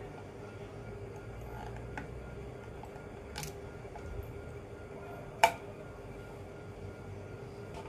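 Soldering iron tip tapping and scraping on a circuit board's solder pads: a few light clicks over a faint steady hum, with one sharp click about five and a half seconds in.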